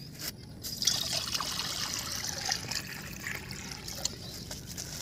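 Water pouring in a steady stream from a tipped metal pot into a wide metal pan that already holds water, starting about a second in.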